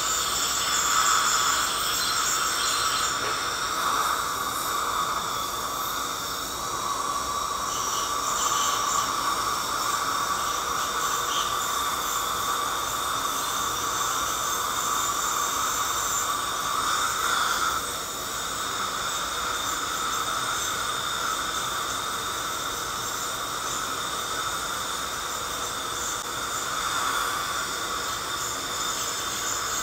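Ultrasonic dental scaler running against heavy tartar on the teeth: a steady high-pitched whine over a constant hiss.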